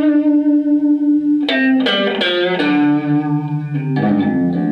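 Electric guitar playing single notes: one note held for about a second and a half, then a quick phrase of picked notes, one of them left ringing.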